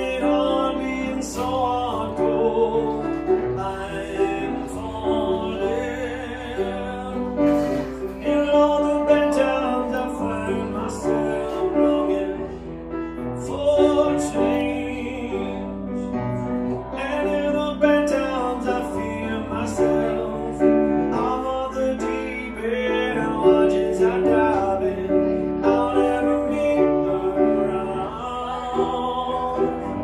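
Live piano-bar music: a grand piano played with a singing voice.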